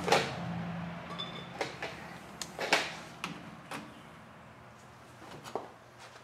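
Scattered light knocks and clicks of hands working against the fuel tank and underbody of the car, the loudest just at the start and again near the third second.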